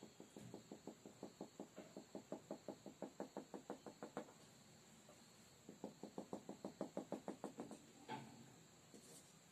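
Faint, rapid run of sharp clicks at about six a second, in two runs of a few seconds each with a short pause between, then one single louder click near the end.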